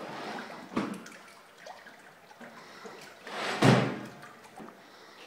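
A large round rug being flung over a hanging rail and flopping against the wall. There is a short thump about a second in, then a louder swish that ends in a heavy thud about three and a half seconds in.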